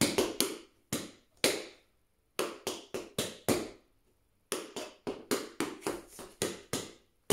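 Tap shoes striking a hard floor as the right foot dances a tap combination: quick, sharp taps in three short phrases, with brief pauses about two and four seconds in.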